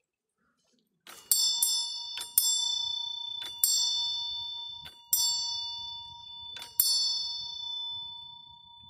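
A small brass bell beside a hand-turned prayer wheel, struck by the spinning wheel's arm. About eight sharp dings come at uneven intervals of roughly a second, some in quick pairs, and each one rings on and fades. The first strike comes about a second in.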